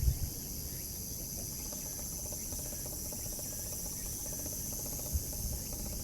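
Steady high-pitched chorus of insects such as crickets, over a low rumble, with a short knock right at the start and another about five seconds in.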